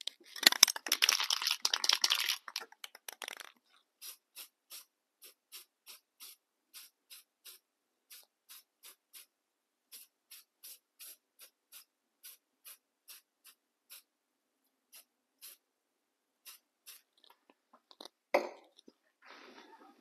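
Aerosol can of clear coat spraying in short, evenly spaced puffs, about two or three a second, to lay on a light final coat. It starts with a few seconds of dense rattling, which is the loudest part. There is a single sharp knock near the end.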